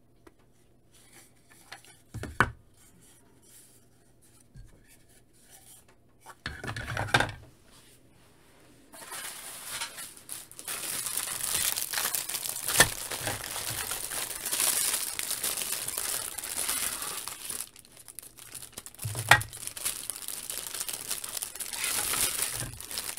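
Hard plastic panels knocked and shifted on a table a couple of times, then from about nine seconds in a clear plastic packaging bag crinkling steadily as panels are handled inside it, with a few sharp clicks of plastic on plastic.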